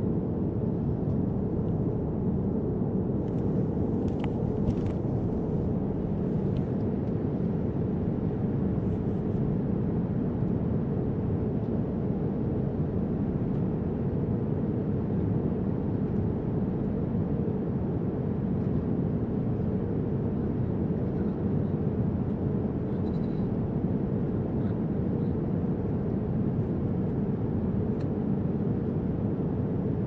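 Jet airliner cabin noise in cruise, heard inside the cabin: a steady low roar of engines and rushing air with a faint even hum over it. A few faint clicks come through about four seconds in and again near the middle.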